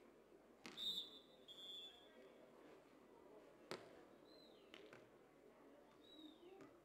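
A referee's whistle blown once, a steady high tone for about a second and a half, then a few seconds later a single sharp slap of a beach volleyball being served. Two short falling high chirps follow over a faint background of the crowd.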